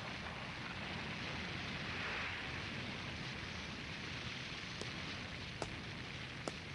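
Cartoon sound-effect ambience of destruction: a steady rushing, rumbling noise with three sharp clicks near the end.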